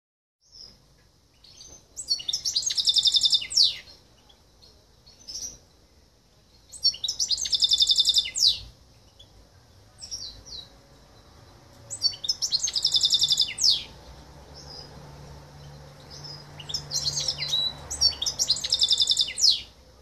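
Silver goldfinch × canary mule singing: four phrases of fast high trills, each about two seconds long and a few seconds apart, with short chirps between them.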